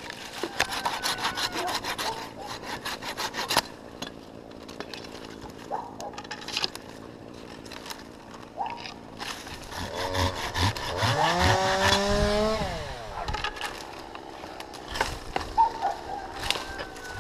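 Handsaw cutting through an oak limb, in quick back-and-forth strokes for the first few seconds and again briefly later. Midway a loud, drawn-out creak rises in pitch.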